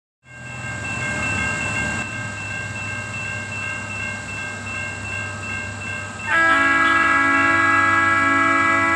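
A grade-crossing bell rings steadily. About six seconds in, the horn of approaching Norfolk Southern maintenance-of-way equipment sounds loudly, a sustained chord of several tones held to the end.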